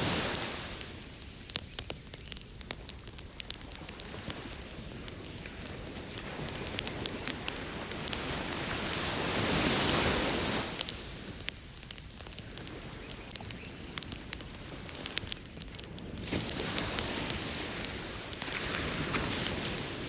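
Bonfire crackling with sharp pops throughout, over ocean waves that wash in and recede, swelling about halfway through and again near the end.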